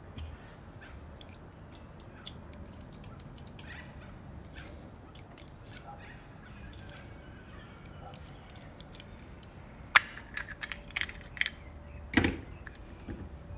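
Small metal clicks, taps and scrapes of a pick working inside the cast automatic choke housing of a Solex 34 PICT-3 carburettor, faint and scattered at first, then a run of louder clicks and a knock over the last few seconds.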